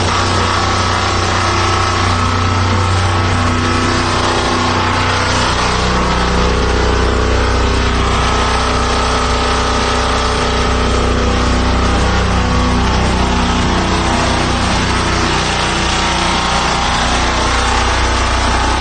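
Diesel twin-cylinder engine of a high-pressure sewer jetter running steadily after an electric start; its note drops lower about five or six seconds in. Behind it is the hiss of the high-pressure water jet.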